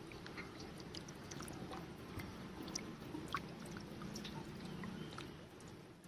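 Faint water sloshing and splashing, with many small scattered clicks and ticks over a low steady hum.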